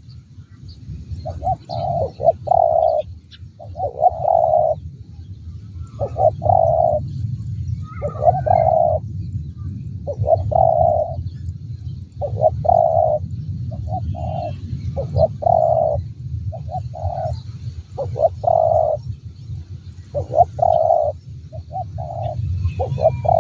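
Spotted dove cooing over and over, its phrases of short notes running into a longer coo, one about every two seconds. A steady low rumble sits underneath, and a small bird chirps briefly about eight seconds in.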